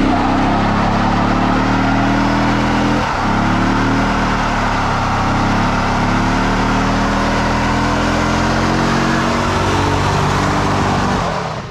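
C4 Corvette's LT4 V8 held at high revs under load in a burnout, with tire squeal over the engine. The revs dip briefly about three seconds in, climb back, and the engine drops off near the end.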